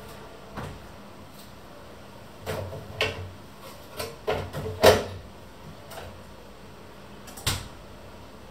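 Scattered knocks and clacks of things being handled in a kitchen, about eight in all, bunched in the middle with the loudest about five seconds in, over a faint steady hum.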